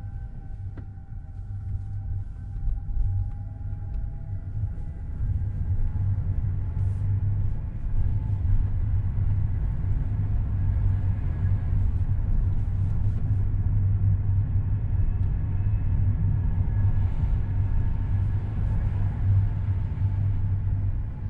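Car driving, heard from inside the cabin: a steady low rumble of engine and road noise, growing louder over the first several seconds and then holding steady.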